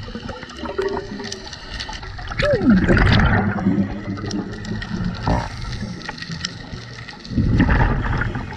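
Scuba diver breathing underwater through a regulator, two loud exhales of bubbles about five seconds apart: one about two and a half seconds in, the other near the end.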